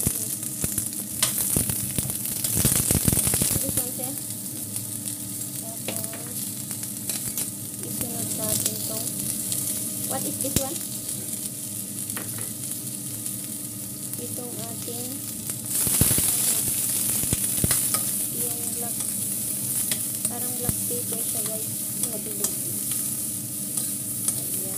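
Chopped onion and ginger sizzling as they fry in oil in a stainless steel pan. A utensil stirs and knocks against the pan at times, most around the first few seconds and again from about sixteen seconds in, where the sizzle gets louder.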